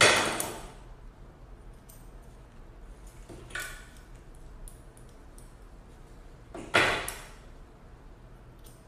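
Grooming scissors snipping and a metal comb handled close to a dog's face, a string of small sharp clicks. Three louder swishes stand out, at the start, about three and a half seconds in and about seven seconds in, each fading quickly.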